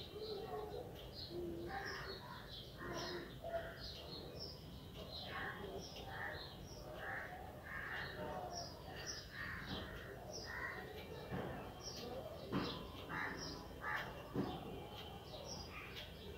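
Birds calling in the background: a string of short calls about every second, with higher short chirps among them. Two soft knocks come in the second half.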